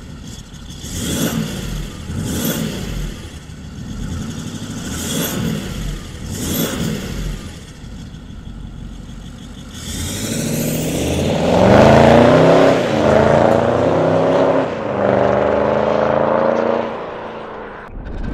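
Audi A8 4.2 TDI V8 diesel revving through an aftermarket exhaust. It is blipped several times in short rises and falls, then revved up and held high for about six seconds before dropping back near the end.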